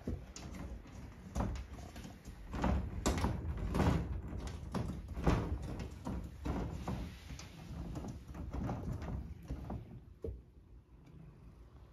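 A cat pawing and scratching at a wooden-framed sliding glass window, rattling the sash in its track in a run of irregular knocks and rattles that die down near the end. The cat is trying to get it open to go outside.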